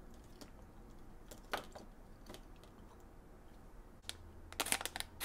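Faint clicks and taps of plastic bag-clip figures being handled and set down on a tabletop. Near the end comes a quicker, louder run of clicks and crackles.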